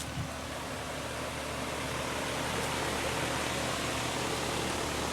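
Payne PA3A 2-ton central air-conditioner condenser running, its Copeland scroll compressor and GE condenser fan giving a steady, very quiet whoosh over a low hum. The sound grows slightly louder over the first two seconds, then holds steady.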